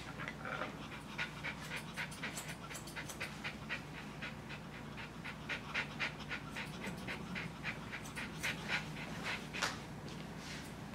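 Small white dog panting quickly, about three short breaths a second.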